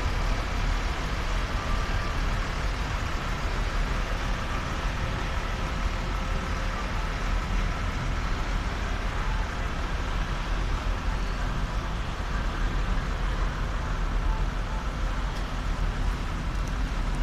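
A column of military trucks and off-road vehicles driving past on a wet street: a steady, continuous engine rumble mixed with tyre noise.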